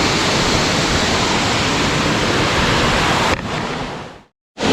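Steady, loud rush of a waterfall. It drops away sharply about three and a half seconds in and fades to silence just before the end.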